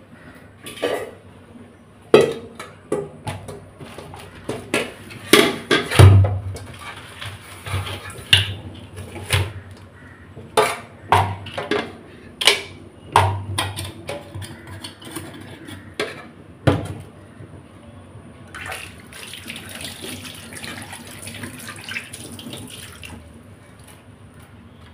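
Irregular sharp knocks and clatter of a steel pot and crab shells handled in a stainless-steel sink. Near the end, tap water runs for a few seconds.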